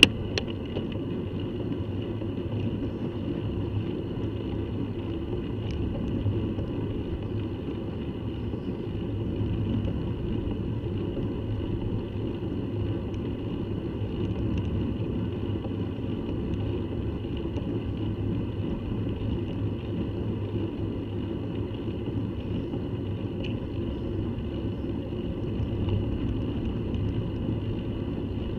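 Steady rumble of wind and tyre-on-road noise on a bicycle-mounted camera while riding along a road, with no distinct events.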